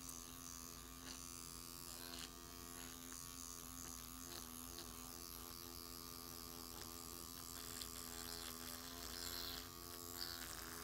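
Motorized microneedling pen running with a faint, steady electric hum as it is worked over the skin of the cheekbone.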